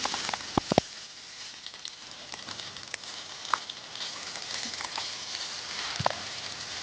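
Food sizzling and crackling in a pan over a camping stove, with scattered small pops and a few sharp clicks under a second in.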